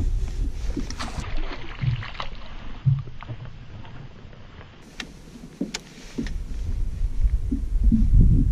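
Outdoor sound on a fishing boat: wind rumbling on the microphone and water moving against the hull, with scattered light knocks and clicks. The rumble eases off in the middle and builds again near the end.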